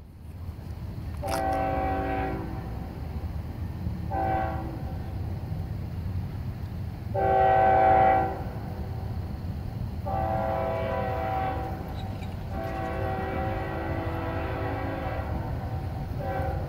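Air horn of an approaching freight train's lead locomotive, a GE ES44AH, sounding a sequence of six blasts, mostly long with two short ones, the loudest about seven seconds in. A steady low rumble of the train runs underneath.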